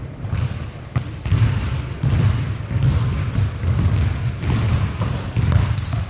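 Basketballs bouncing on a hardwood gym floor, a few sharp bounces, with sneakers squeaking briefly as a player cuts and sprints, over a steady low rumble.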